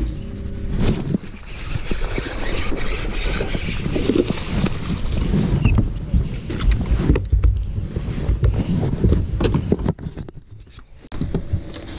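Knocks, bumps and rustling of someone moving about and handling gear on a bass boat's carpeted deck, over irregular low rumbling.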